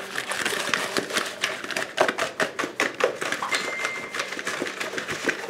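Sauced chicken wings knocking around inside a plastic bowl capped with a paper plate as it is shaken to coat them: a rapid, irregular run of knocks and clicks.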